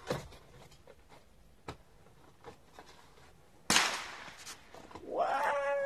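A single shot from a Remington 870 Express 12-gauge pump shotgun about three and a half seconds in: a sharp crack that trails off over about a second.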